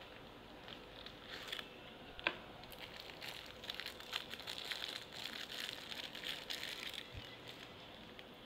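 A padlock's retail packaging being opened by hand: faint crinkling and rustling with many small clicks, busiest in the middle seconds, and one sharper click about two seconds in.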